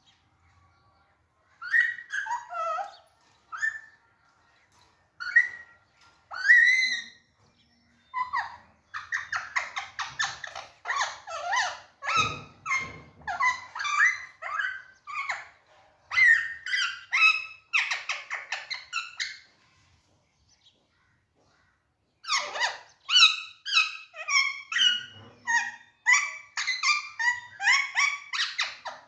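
Alexandrine parakeet calling: a few separate sharp calls, then long runs of fast, repeated high chirps and chatter, broken by a short pause about two-thirds of the way through before the chattering resumes.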